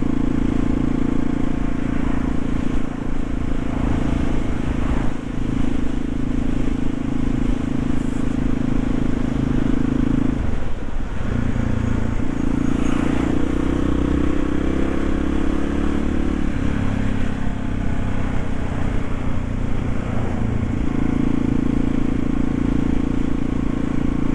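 Yamaha XT350's air-cooled single-cylinder four-stroke engine running steadily under way, heard from the rider's helmet. About ten seconds in the engine note drops briefly, then changes pitch for several seconds before settling back to the steady cruising note near the end.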